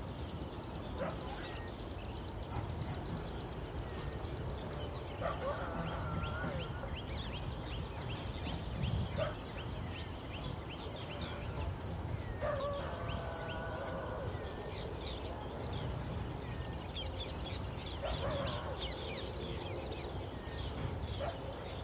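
Wild birds calling every several seconds over a dense chatter of short, high insect and bird chirps, with a steady low background rumble.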